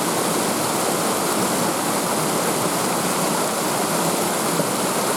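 Water rushing steadily over the falls and down the stream: a continuous, even wash of water noise.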